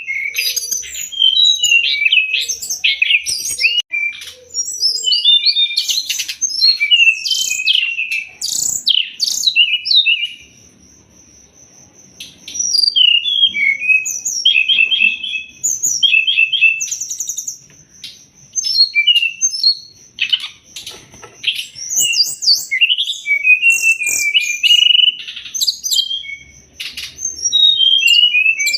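Brown-chested jungle flycatcher (SRDC) singing a fast, varied song of chattering chirps and sweeping whistled notes, with a pause of about two seconds partway through. A thin, steady high tone runs beneath it.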